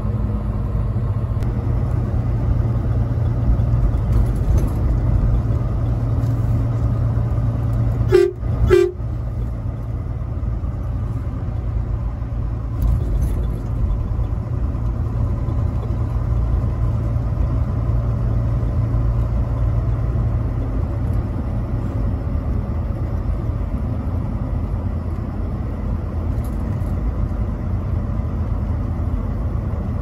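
Truck horn giving two short toots about half a second apart, around eight seconds in, over the steady low drone of the truck's engine and tyres heard from the cab.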